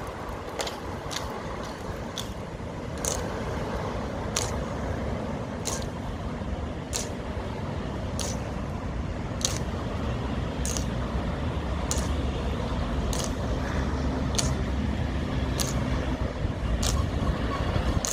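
Honor guards' slow, measured marching steps: sharp boot clacks at an even pace of about one every second and a quarter, over a steady low rumble.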